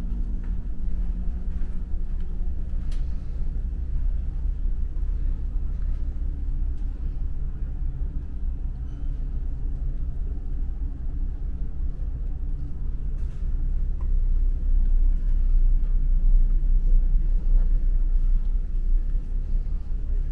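Steady low drone of a car ferry's engines and machinery carried through the passenger deck, a deep hum with a few steady low tones in it, growing a little louder past the middle.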